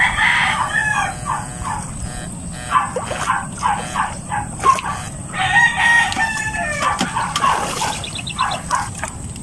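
Fowl calling: a long pitched call at the start and another about halfway through, with shorter calls in between.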